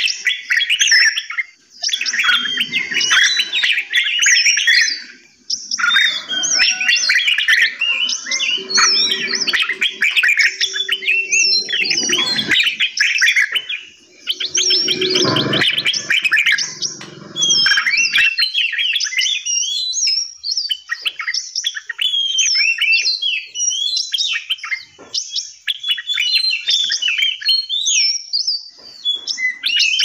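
Many small aviary songbirds chirping and singing at once, a dense overlapping chorus of quick high chirps and warbles that thins to scattered calls in the second half. A low drone comes in briefly twice in the middle, under the birds.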